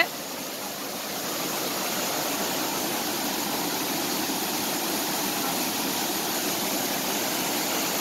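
Waterfall pouring over rocks into a pool: a steady rush of water, a little louder from about a second in.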